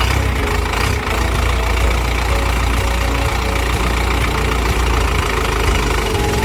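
Diesel-driven wood chipper running steadily, its engine a heavy low drone under a dense mechanical clatter.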